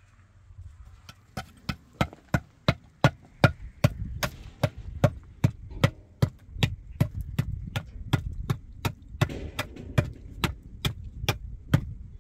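Hammer striking a hollow concrete block over and over, about three blows a second, chipping it apart. The blows begin about a second and a half in.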